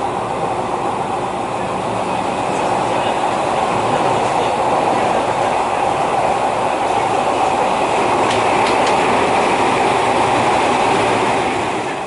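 Local commuter train running, heard from inside the carriage: a steady rumble and rush of wheels on rail that grows a little louder about four seconds in, with a couple of faint clicks near the end.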